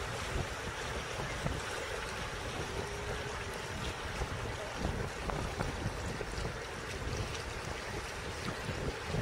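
Wind buffeting the microphone in a steady low rumble, over small lake waves lapping and splashing against the shoreline rocks in faint ticks.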